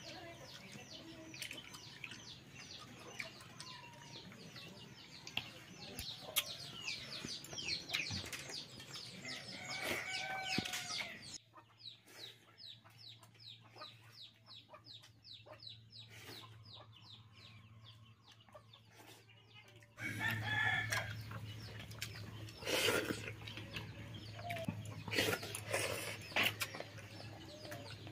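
Chickens clucking, with a rooster crowing about ten seconds in.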